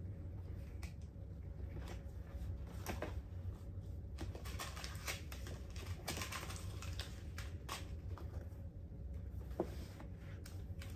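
Packaging being handled and searched through: scattered light clicks, taps and rustles of the box's inserts and compartments being moved about, over a steady low hum.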